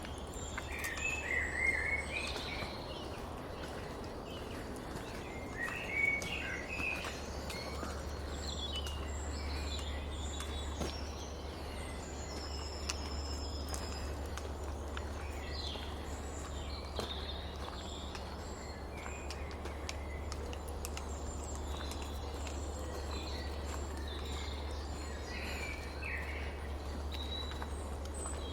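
Dawn chorus of several songbirds, with scattered overlapping chirps, trills and short whistled phrases, over a steady low hum.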